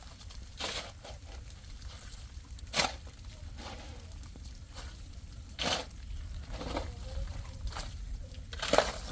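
About five short knocks or scrapes, spread over several seconds, over a steady low rumble; the loudest come about three seconds in and near the end.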